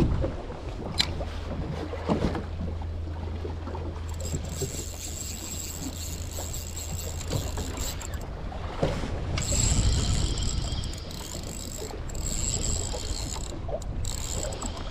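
Baitcasting fishing reel being wound steadily during a tai-rubber retrieve, a mechanical whirr of its gears.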